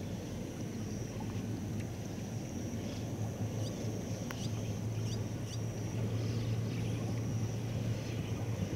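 Open-air rural ambience: a steady low rumble that grows a little louder towards the end, under a thin steady high tone, with a few short high chirps in the middle.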